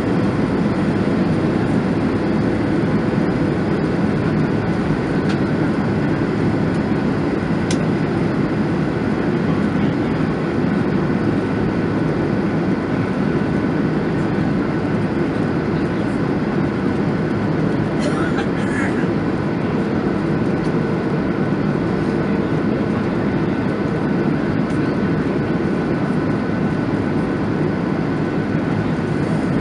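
Steady cabin noise of a Boeing 737-900ER in flight: the CFM56-7B turbofans and the airflow over the fuselage make an even, unchanging drone, with a faint steady high whine above it. A brief faint click sounds about eighteen seconds in.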